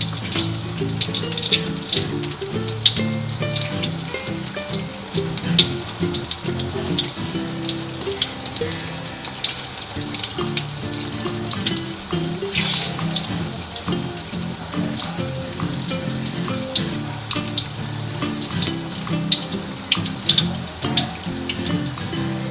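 Egg martabak parcels in spring-roll wrappers frying in hot oil over medium heat: steady sizzling with frequent sharp crackles and pops. Background music plays underneath.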